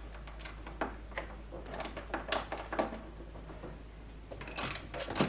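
Wrench working the top triple clamp pinch bolts of a Honda CBR600RR as they are loosened: scattered light clicks and clinks, with a quick run of them near the end.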